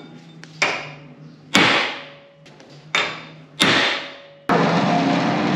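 A hammer strikes metal four times, each blow ringing on as it fades, over a low steady hum. About four and a half seconds in, a loud, steady mechanical noise starts abruptly.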